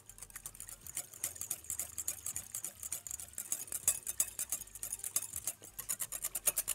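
Wire whisk beating a thin yogurt mixture in a glass bowl: rapid, steady ticking of the wires against the glass.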